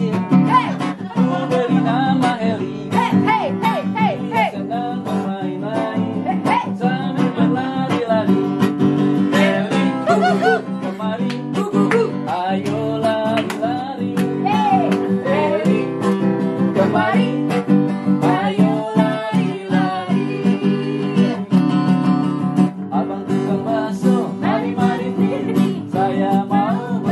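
Acoustic guitar strummed, with voices singing along.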